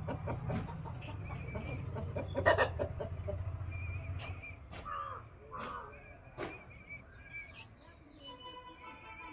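Country chickens clucking, with scattered sharp clicks. A low steady hum runs underneath and stops about four seconds in.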